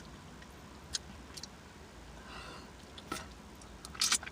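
Quiet eating sounds: a few sharp smacks and clicks while chewing, with a louder cluster of them near the end.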